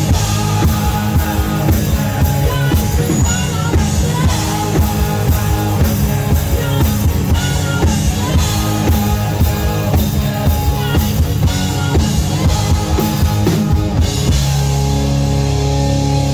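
Rock song with a driving drum-kit beat; about fourteen seconds in the drums stop and a held chord rings on.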